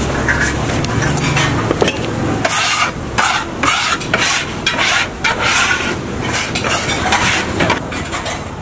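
Freshly hand-cut kalguksu noodles being tossed and shaken on a floured board by gloved hands: a run of irregular soft rustling, swishing strokes that starts a couple of seconds in. A low steady hum sits under the first couple of seconds.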